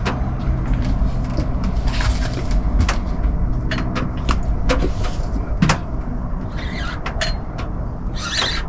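Irregular clicks and knocks from fishing tackle and handling while a hooked gafftopsail catfish is reeled in and landed, over a steady low rumble.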